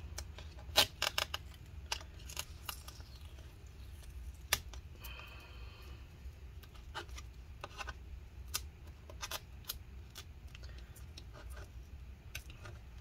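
Scattered light clicks and taps, with a stretch of scraping about five seconds in: old battery adhesive being peeled and scraped by hand out of a MacBook Pro's case.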